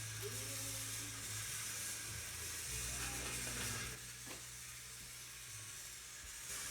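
Motorized toy train engines running around a track: a steady motor hum with hiss and a faint mechanical rattle.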